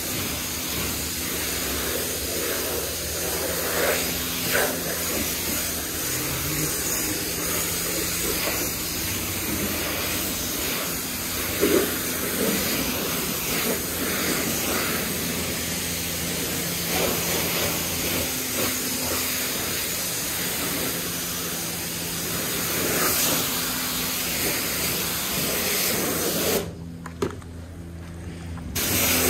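High-pressure water jet from a self-serve car wash wand hissing steadily as it sprays a car's body. Near the end the spray cuts out for about two seconds, then starts again.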